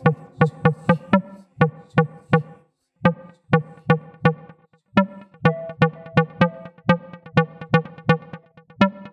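Electronic background music: a steady beat of short, sharp plucked-sounding synth notes, with a brief break about three seconds in.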